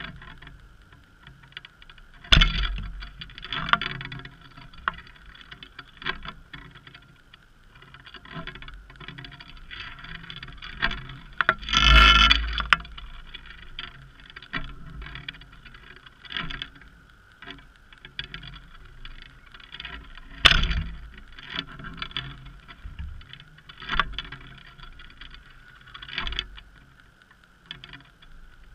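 Irregular muffled knocks and clicks, heard through a GoPro's waterproof housing underwater, as the halibut spreader rig it is mounted on moves and bumps. The loudest come about two seconds in, near the middle and about two-thirds through, over a steady faint hum.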